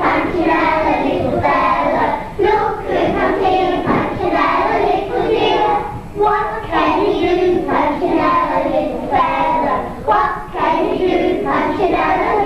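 A group of young children singing a song together in unison, in phrases with short pauses between them.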